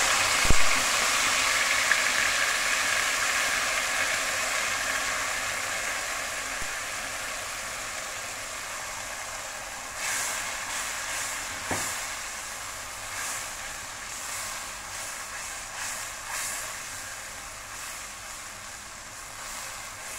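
Marinade masala paste sizzling loudly as it hits hot oil in an aluminium karahi, the hiss slowly dying down, with a sharp knock just after it goes in. From about halfway, a silicone spatula stirs the frying paste in short scraping strokes with another knock.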